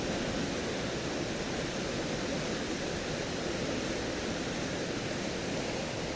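Steady rushing of a river in flood.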